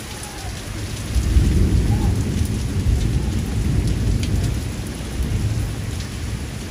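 Heavy rain pouring steadily, with a long low rumble of thunder that swells about a second in and dies away near the end.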